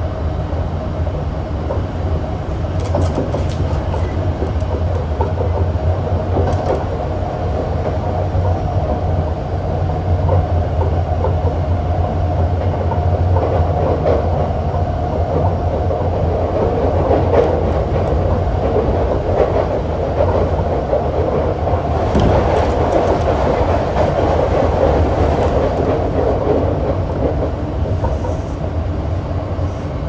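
Hankyu 7300-series electric train (Toyo IGBT VVVF traction) running along the line, heard from inside the car. There is a steady rumble of wheels on rail with a steady hum and scattered clicks over the rail joints.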